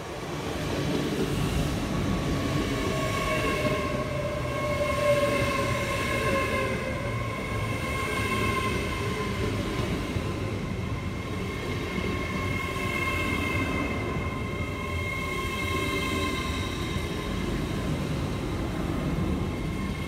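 LNER Azuma (Hitachi high-speed train) running slowly into the platform with a steady rumble from wheels and rails. Over it sit high, steady whining tones, and a lower tone falls in pitch a few seconds in as the train slows.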